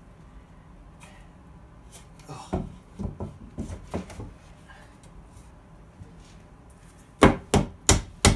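Claw hammer striking a wooden board, driving the platform down onto tight-fitting wooden dowels. A few soft knocks of the board being worked into place come first, then four sharp blows near the end, about three a second.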